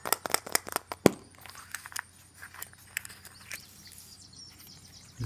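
A quick run of sharp clicks and crackles, densest in the first second, then scattered clicks for a couple more seconds: hands opening a toy surprise egg.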